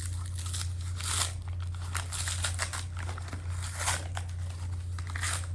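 Packaging crinkling and rustling in irregular bursts as a parcel is unwrapped by hand.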